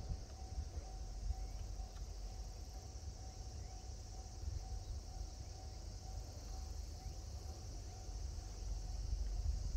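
Rural outdoor ambience: a steady high-pitched chorus of insects with a faint, slightly pulsing tone beneath it, over an uneven low rumble of wind on the microphone.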